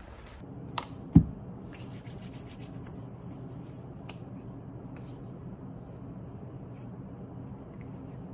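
A sharp click and then a low thump about a second in. After that, hands rub hand cream together with a soft, steady rubbing.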